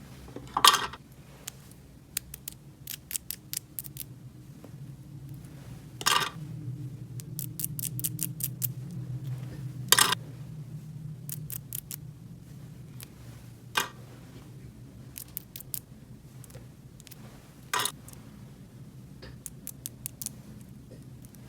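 Rapid runs of small sharp clicks and ticks from small hard objects being handled, with a few louder knocks spaced several seconds apart, over a faint low hum.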